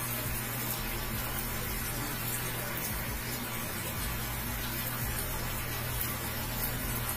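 Steaks frying in a skillet of bubbling pan sauce, with a steady sizzle.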